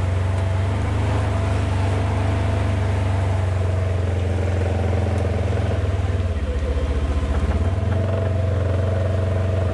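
A vehicle's engine running steadily under way. Its note dips and wavers briefly about two thirds through, then settles back.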